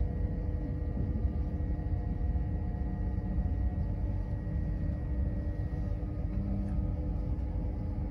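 Passenger train running along the track, heard from inside the carriage: a steady low rumble with a few faint steady tones held above it.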